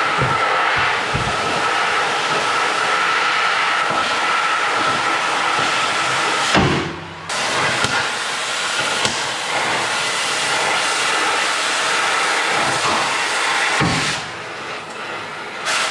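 Gas torch burning with a steady hissing roar, heating a seized front suspension joint to free it, with a few sharp metal knocks. The roar cuts out briefly about seven seconds in and drops away near the end.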